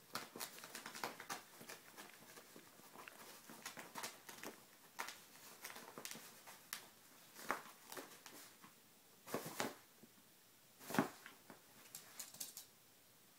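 A Chihuahua humping a soft pet bed: irregular rustles and scuffs of fabric and scrabbling paws, the loudest a couple of seconds before the end.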